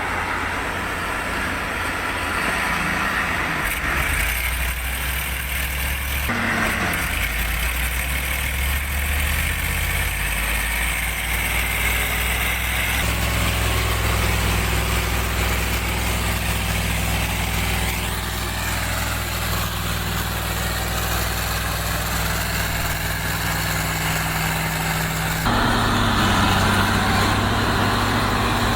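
Timber-hauling truck engines running low and steady. The engine sound changes abruptly several times as one clip cuts to the next.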